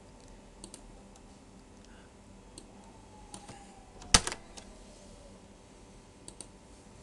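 Scattered computer keyboard and mouse clicks, a few at a time, with one sharp, much louder click about four seconds in.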